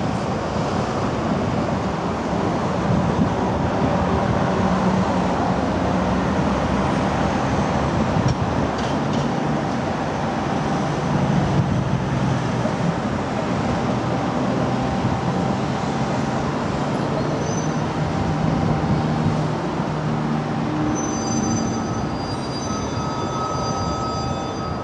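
Ebbelwei-Express tram set running around a track loop, a steady rolling rumble mixed with road traffic. Thin high wheel squeals join in during the last few seconds as it rounds the curve.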